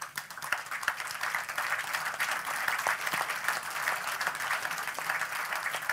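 Audience applauding steadily, many hands clapping in an even, dense stream.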